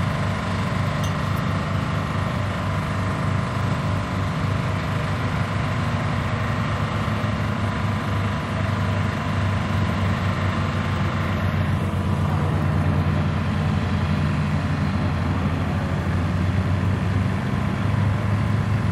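Light aircraft piston engines running at low taxi power, a steady low drone. The sound shifts about twelve seconds in, where a second aircraft's engine takes over, a little louder.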